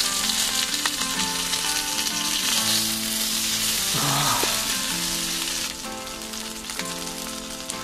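Lamb chops sizzling and frying in a hot pan, a dense steady hiss that drops away about three-quarters of the way through. Soft background music plays underneath.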